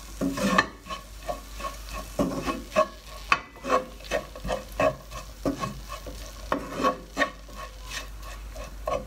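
Wooden spoon stirring and scraping instant noodles and mixed vegetables around a non-stick frying pan, in quick strokes about two or three a second, with the food sizzling as it fries.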